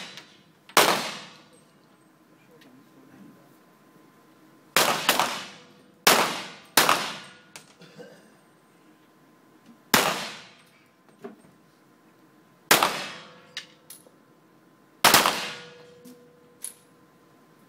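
Centerfire target pistols fired slow-fire, one shot at a time, by several shooters on adjacent lanes in the precision stage of a 25 m centerfire pistol event. About seven sharp shots at uneven intervals, each trailing off in a short echo in the range hall, with a few faint clicks between.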